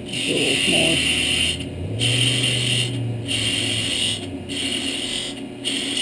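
Skew chisel cutting a spinning poplar blank on a mini wood lathe: a hissing cut that comes in repeated passes about once a second, over the steady hum of the lathe.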